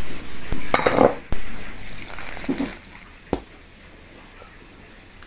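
Ingredients poured into a glass bowl with clinks against the glass in the first second or so, then a wire whisk stirring flour and liquid into batter more quietly. There is a sharp clink a little past three seconds in.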